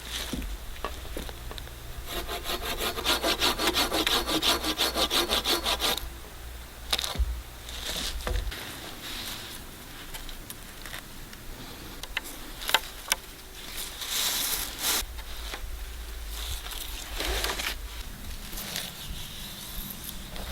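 Hand saw cutting through wood with rapid back-and-forth strokes for about four seconds, followed by scattered knocks and rustles as the wood is handled.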